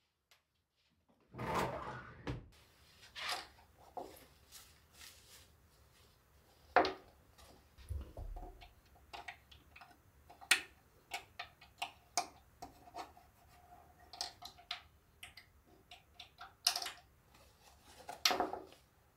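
Hands handling household items: scattered clicks, taps and rustling, with a few louder knocks, one about seven seconds in and one near the end.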